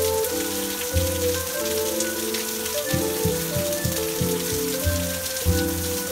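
Steady rain falling, an even hiss, with slow music of held low notes and chords under it.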